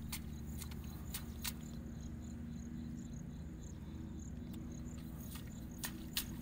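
Field insects chirping in short, broken high-pitched trills over a steady low hum, with scattered sharp clicks that grow more frequent near the end.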